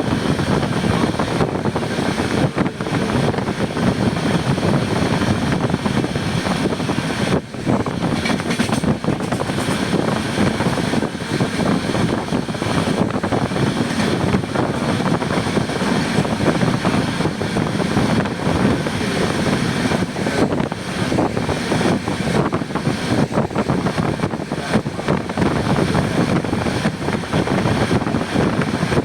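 Steady running noise of a moving train heard from on board: a continuous rumble of wheels on track, with a brief drop in level about seven seconds in.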